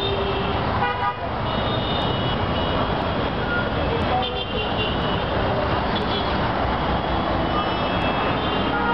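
Heavy, congested street traffic of motorcycles, auto-rickshaws, buses and cars running at low speed, with vehicle horns honking repeatedly: short honks about a second in, again around two seconds and four to five seconds, and a longer one near the end.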